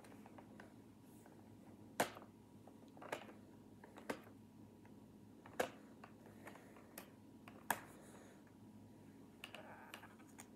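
Hands handling a boxed computer mouse's packaging: a handful of separate sharp clicks and taps spread over several seconds, with a faint rustle near the end.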